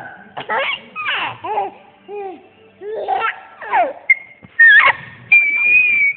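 Baby laughing in a string of short, high-pitched giggles and squeals, ending in a long, high squeal.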